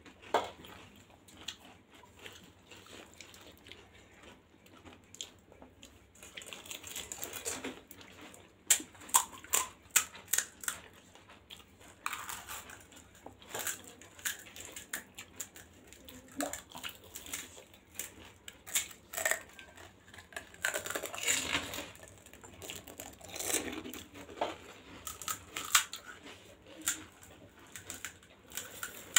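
Close-miked eating of pani puri: crisp, hollow puri shells crunching in a run of sharp cracks, with wet chewing in between.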